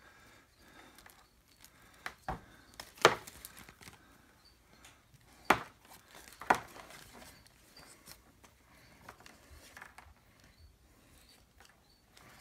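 Handling noise at a workbench as a small inflatable's blower motor and its nylon fabric are moved about: a handful of short sharp clicks and knocks, the loudest about three and five and a half seconds in, with faint rustling between.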